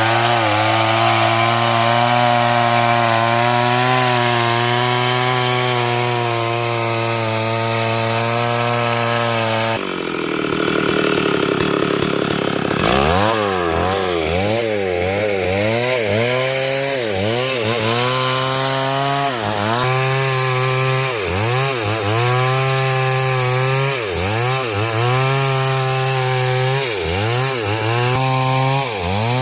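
Chainsaw cutting hard coconut wood, running at high revs with a steady pitch for the first ten seconds. After a brief noisier break, the engine speed dips sharply and recovers about once a second, over and over.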